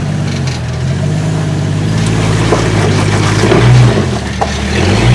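Lifted rock-crawling Jeep Wrangler's engine working under load as it climbs over granite boulders, revving up a little past three seconds in, easing off briefly about a second later, then pulling again.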